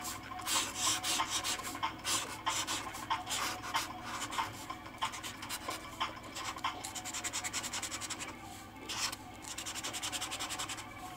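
Broad-tip marker rubbing and scratching across paper in quick, repeated strokes as it outlines letters.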